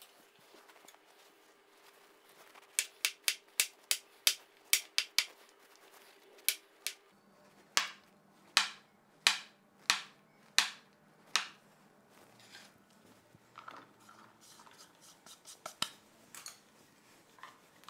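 Chef's knife chopping porcini mushrooms on a wooden cutting board: a run of sharp taps, about three a second at first, then slower and further apart, stopping about eleven seconds in. A few fainter knocks follow near the end.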